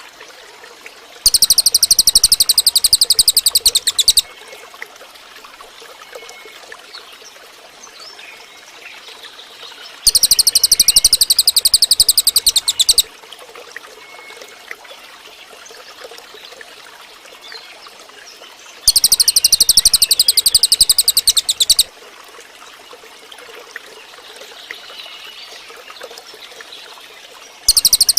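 Cililin singing: a very fast, high trill of rapidly repeated notes in bursts of about three seconds, four times, roughly every nine seconds. Between the bursts there is only a faint steady background hiss.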